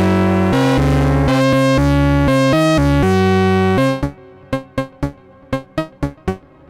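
Synthesizer music: dense chords over a stepping bass line. About four seconds in it cuts out, leaving a handful of short, plucked-sounding notes.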